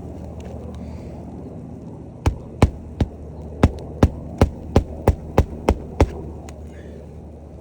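Hammer striking about eleven times in a quick, even run during a shingle repair, starting about two seconds in and stopping about six seconds in.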